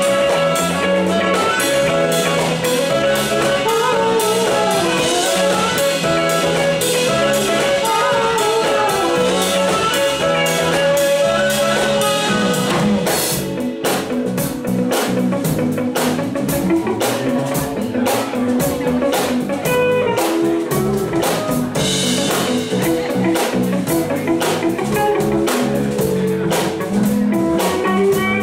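Live funk-jazz band playing an instrumental passage: semi-hollow electric guitar over drum kit, electric bass and keyboard, with a short drop in the middle.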